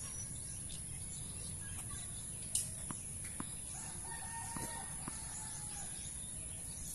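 A rooster crowing once in a long call of about two seconds, beginning about halfway through. A sharp knock comes a little earlier, with a few fainter clicks.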